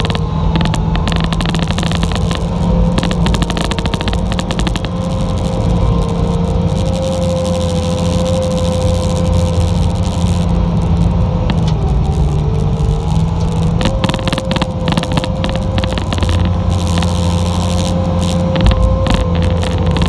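Bobcat T590 compact track loader's diesel engine running steadily under load, heard from inside the cab, with a steady high whine over it and frequent clicks and rattles. About halfway through the pitch sags for a couple of seconds, then picks back up, as the machine works against the soil it is pushing.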